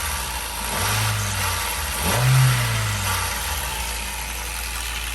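Hyundai i20 engine revved briefly twice, then settling to a steady idle.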